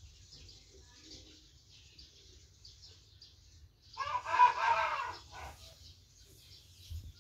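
A rooster crows once, starting about four seconds in and lasting about a second and a half, over a faint steady hiss and low rumble.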